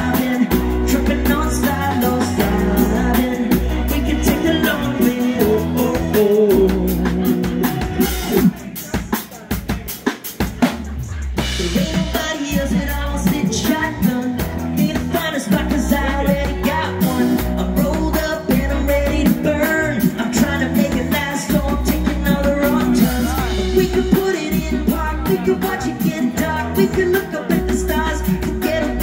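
Live band playing a song with a singer, drum kit, electric guitars and keyboard. About eight and a half seconds in, the band drops out to a few sparse hits for about three seconds, then comes back in full.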